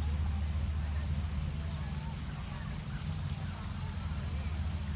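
Steady high-pitched insect chorus, an even shrill drone, over a constant low rumble.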